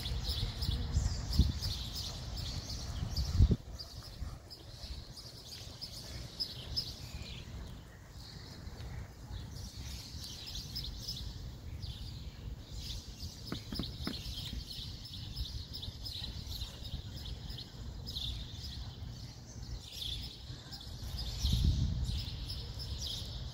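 Small birds chirping repeatedly in the background, with a low rumble and a couple of thumps in the first few seconds and again near the end.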